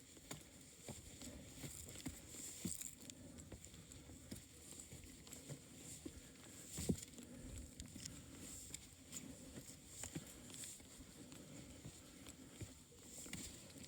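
Footsteps of a hiker on a rocky mountain trail: irregular light taps and scuffs, with one louder knock about seven seconds in.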